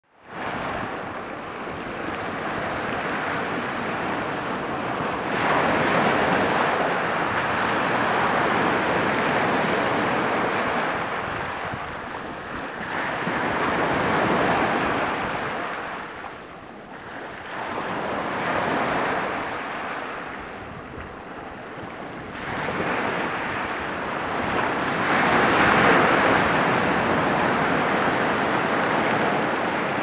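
Rough sea surf breaking and washing up a stony beach, a loud rushing that swells and fades wave by wave every few seconds.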